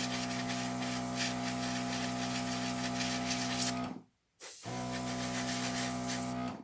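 A small airbrush compressor motor hums steadily under the hiss of an airbrush spraying paint. It stops dead for a moment about four seconds in, then resumes.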